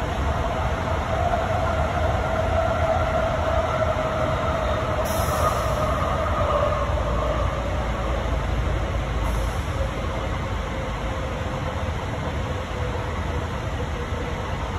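An AirTrain JFK car running along its guideway, heard from inside the car: a steady rumble with a motor whine that slowly falls in pitch.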